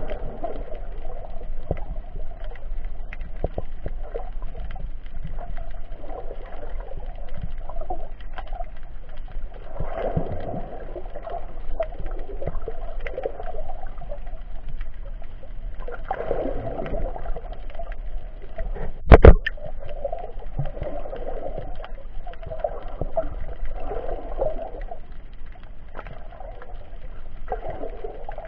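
Muffled underwater noise heard through an action camera's waterproof case: a steady churning of water that swells now and then. There is one sharp, loud knock about nineteen seconds in.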